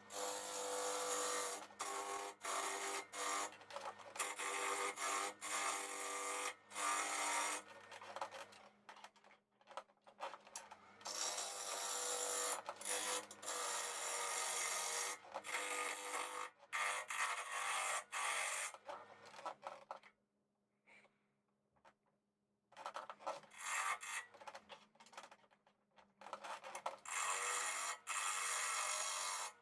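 Turning tool cutting a spinning alder blank on a wood lathe, in repeated rough passes, over the steady hum of the lathe motor. Everything drops out for about two seconds about two-thirds of the way through.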